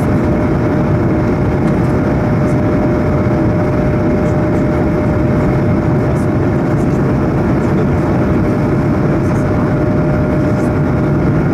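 Cabin noise inside a Swiss Bombardier CS100 (Airbus A220-100) climbing after takeoff: its Pratt & Whitney PW1500G geared turbofan engines and the rushing air make a steady, even noise, with a constant hum held above it.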